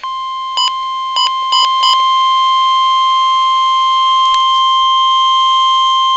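NOAA Weather Radio warning alarm tone: a single steady tone of about 1050 Hz that starts abruptly and holds unbroken, signalling an emergency alert broadcast. Four short beeps sound over it in the first two seconds.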